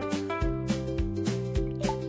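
Upbeat background music with a steady beat and plucked-string melody.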